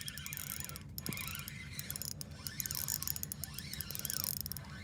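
Spinning fishing reel being cranked, a fast run of fine clicks with a faint rising and falling whir.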